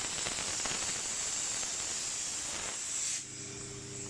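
Compressed air hissing out of a 100-litre air compressor's tank, which lets the tank pressure drop. The hiss cuts off suddenly about three seconds in, leaving a quieter steady hum with low tones.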